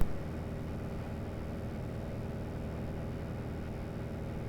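Steady low drone of a Piper Arrow's piston engine and propeller in cruise flight, heard from inside the cockpit.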